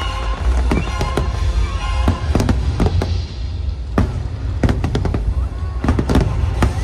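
Aerial firework shells bursting in a rapid barrage: many sharp bangs, several close together, over a continuous deep rumble, with show music underneath.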